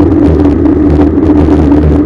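Loud, steady wind rumble and rolling noise picked up by a bicycle-mounted rear camera while riding, with a steady hum.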